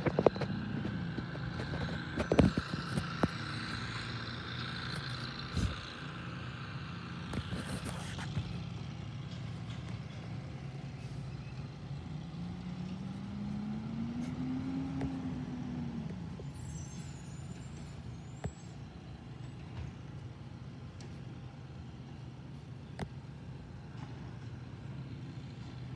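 Recycling truck's engine running steadily, a low hum. Its note rises and falls once about halfway through as the engine revs. A few sharp knocks come near the start.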